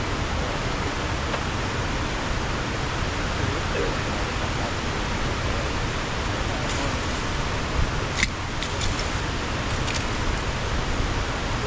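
Steady rushing of water pouring over the dam, with a couple of sharp clicks about eight seconds in.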